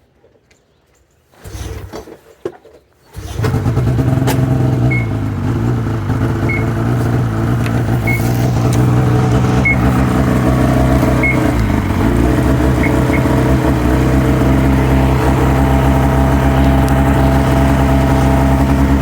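Two-stroke twin engine of a 2005 Ski-Doo MX-Z Renegade 600 H.O. SDI snowmobile being pull-started from cold: two pulls on the recoil starter, then it catches about three seconds in and settles into a steady, raised warm-up idle. It starts within two pulls on the new fuel pump and pressure regulator, a cure for its long-standing hard-start problem.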